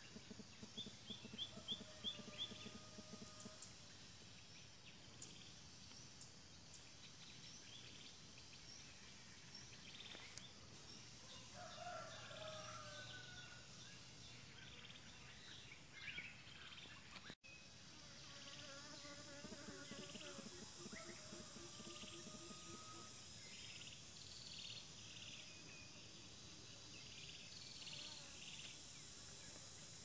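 Faint rural ambience: scattered bird chirps and calls over a steady high insect hiss. A brief dropout just past halfway, after which the insect hiss is stronger.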